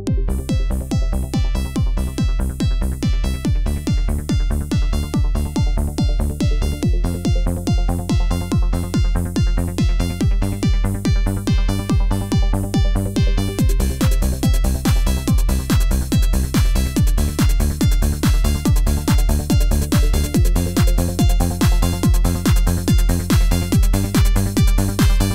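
Electronic dance music with a steady, driving beat and a repeating synth pattern; a brighter, hissier top layer joins about halfway through.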